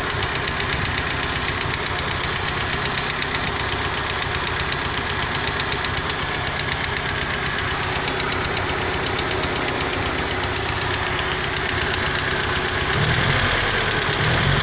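GAZelle van's ZMZ four-cylinder petrol engine running with a steady, rapid knock, which the owner takes to come from the third cylinder. The engine gets a little louder near the end.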